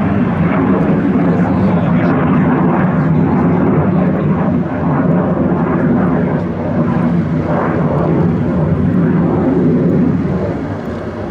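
The loud, steady rushing noise of a MiG-21UM jet's single turbojet engine in flight, slowly swelling and fading as the jet manoeuvres and easing off somewhat near the end.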